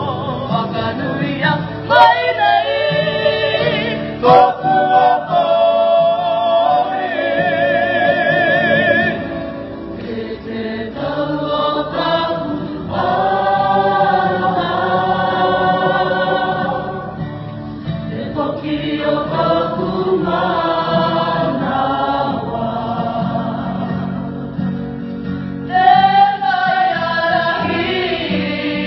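A group of voices singing together like a choir, in phrases with short breaks. A single voice with a wide vibrato stands out in places.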